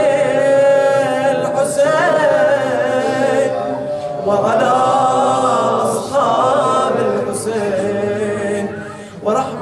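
A man chanting Arabic salutations (ziyarat) in a slow, unaccompanied melody, with long held notes that waver and bend.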